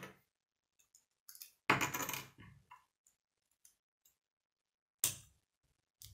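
K'nex plastic pieces clicking and clattering as they are handled and snapped together on a wooden table: a burst of rattling clatter about two seconds in, then a single sharp click about five seconds in and another near the end.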